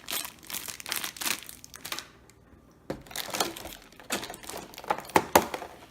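Plastic packaging bags crinkling as they are handled and opened, with a short lull about two seconds in and a few sharp clicks near the end.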